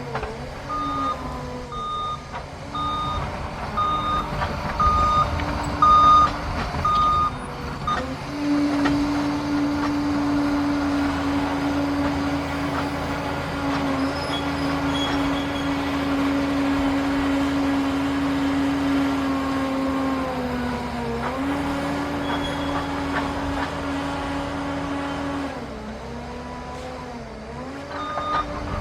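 Liebherr PR 746 crawler dozer working, its diesel engine running steadily and dipping briefly in pitch a few times as the load changes. Its reversing alarm beeps a little more than once a second for the first seven or so seconds while it backs up, and starts again at the very end.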